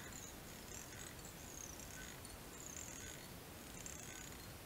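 Faint, brief high-pitched scratches of red tying thread being wrapped around a hook shank from a bobbin holder, over a low hiss.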